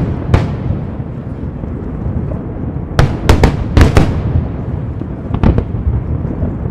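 Fireworks display: aerial shells bursting with sharp bangs, one just after the start, a quick cluster of four or five about three to four seconds in, and two more around five and a half seconds, over a continuous low rumble of further reports.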